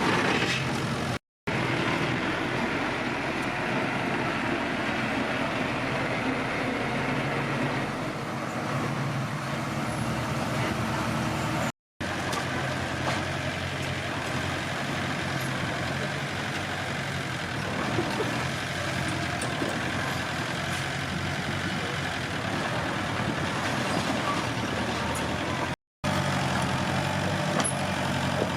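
Komatsu D21P bulldozer's diesel engine running steadily while working. The sound breaks off for a split second three times.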